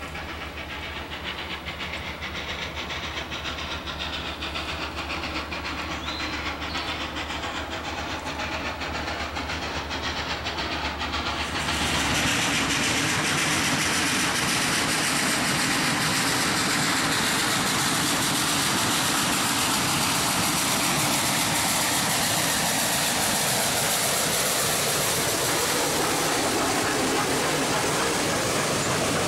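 2-8-0 Consolidation steam locomotive No. 734 approaching, its sound growing steadily louder. About twelve seconds in, it jumps louder and turns into a steady rush of steam and running gear as the locomotive and its passenger cars pass close by.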